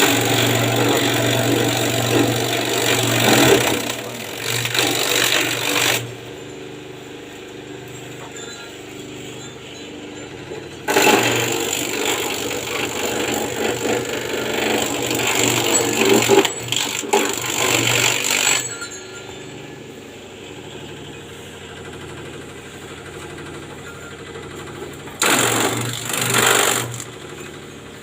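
Small engine-driven grass chopper running steadily, loud and harsh while grass is fed through and chopped: for the first six seconds, again for about seven seconds in the middle, and briefly near the end, with the machine running unloaded in between.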